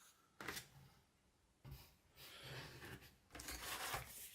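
Faint rustling and handling noises of kit parts being moved about, in a few short soft bursts.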